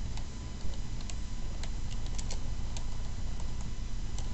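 Computer keyboard being typed on: a run of irregular keystroke clicks as a short phrase is entered, over a steady low hum.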